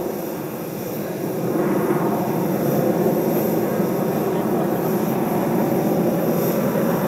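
Jet noise from the twin AL-31FP turbofans of a Su-30MKM fighter flying overhead: a steady, deep rush without a clear pitch that grows louder about a second and a half in, then holds.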